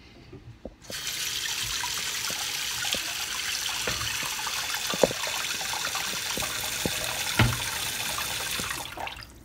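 Kitchen tap running onto a pressure cooker to cool it down so it can be opened, starting about a second in and stopping near the end, with a few knocks of the pot against the sink.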